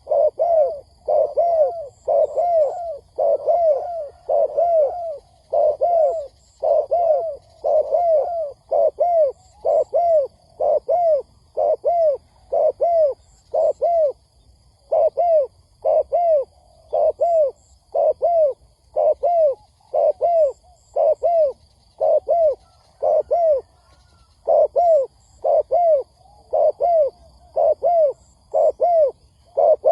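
Spotted dove cooing over and over in short, arched coos that rise and fall in pitch, grouped in twos and threes with brief pauses between the groups.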